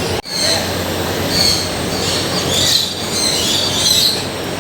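Repeated shrill, high-pitched squealing calls from pet animals, over steady crowd hubbub.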